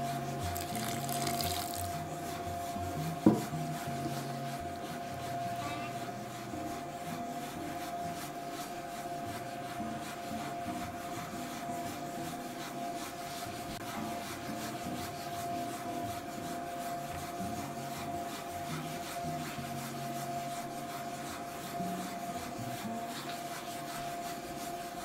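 Spiral dough mixer running at its lower speed, the motor humming steadily while the spiral hook turns and kneads a wet bread dough against the steel bowl. A single knock about three seconds in.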